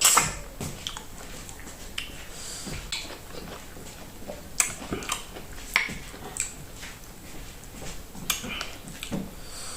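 Close-up eating sounds of fufu with okra soup: wet chewing and lip smacks, with irregular short clicks and smacks.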